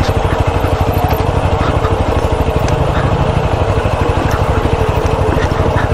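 Motorcycle engine running at low revs with a steady, rapid pulsing beat as the bike rolls slowly over a rocky dirt track, with a few faint ticks from loose stones and rattles.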